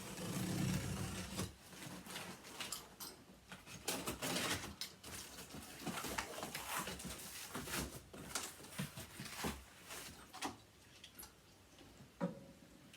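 Shipping box being opened by hand: irregular rustling and scraping of cardboard and packing material with short knocks and clicks, busiest in the first second or so and again around four seconds in.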